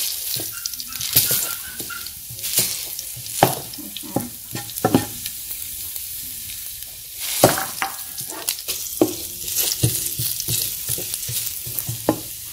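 Garlic cloves sizzling in hot oil in a nonstick frying pan, with a wooden spatula scraping and tapping against the pan at irregular moments as it crushes them.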